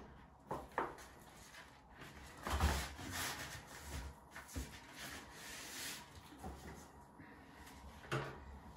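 Lining paper rustling and rubbing as hands press and smooth it against the wall, with a few short crackles, the loudest about two and a half seconds in.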